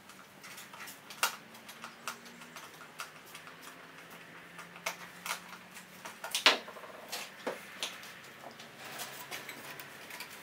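Irregular clicks, taps and light knocks of hard plastic dashboard parts being handled and pressed together on a workbench, as a re-covered crash pad is test-fitted to the dash fascia, with the sharpest knock about six and a half seconds in.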